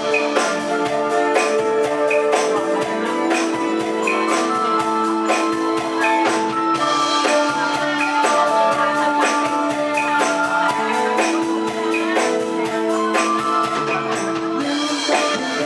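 Live band music: sustained held chords over a quick, steady drum-kit beat.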